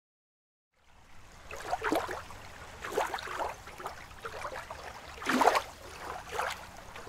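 Water splashing and lapping in irregular surges about once a second, starting suddenly just under a second in.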